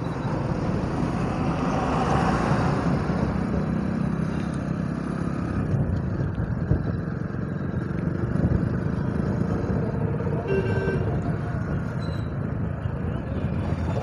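Motorcycle engine running at riding speed with wind and road noise, heard from the rider's own bike, among other motorcycles and trucks in traffic. A short beep sounds about eleven seconds in.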